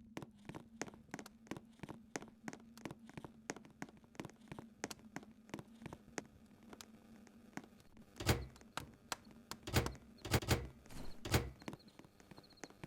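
A dog moving about on a hard surface: light, even clicks about four a second, then a handful of heavier thumps past the middle.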